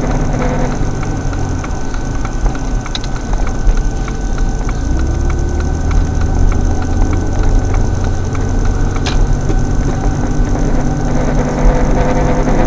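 A car's turn-signal relay clicking in a steady, even rhythm over the engine and road hum inside the cabin; the clicking stops near the end.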